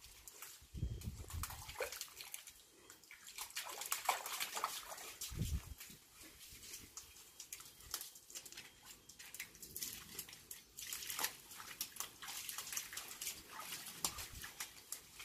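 Jack Russell terrier at a water-filled plastic dog pool: dog sounds and paws scrabbling against the pool wall, with water lapping and a couple of dull knocks.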